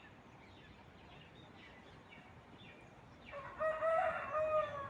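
A rooster crowing once: one long call that starts about three seconds in, after faint small-bird chirps.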